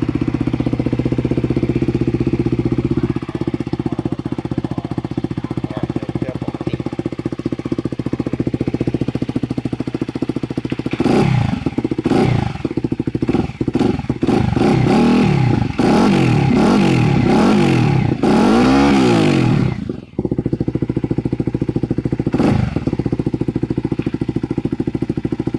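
Kawasaki Z250SL single-cylinder engine running through an aftermarket full exhaust system with a fake Akrapovic carbon muffler, its dB-killer baffle left out. It idles steadily, then is revved in a series of quick throttle blips through the middle, with one more blip a little later, and settles back to idle.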